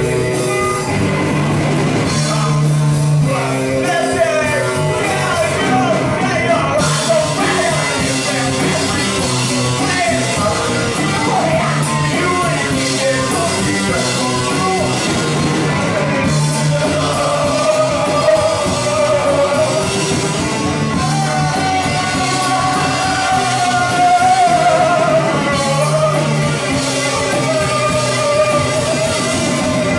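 Live rock band playing a song: electric guitar, electric bass and drum kit with a singer's amplified vocal.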